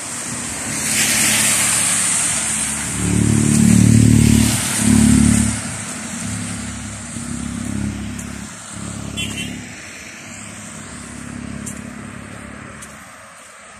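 Road traffic passing on a wet road: tyre hiss from a car going by, then a louder engine passing close about three seconds in, then a lower engine hum that fades away.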